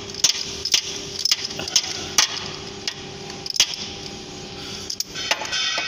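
Sharp metallic clicks and knocks from a socket wrench and extension working a bolt, coming irregularly about once every half second.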